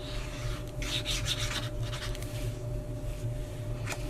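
Hands and a glue-bottle tip rubbing and sliding over cardstock as an envelope flap is glued and pressed down: a few scratchy paper strokes, the strongest about a second in.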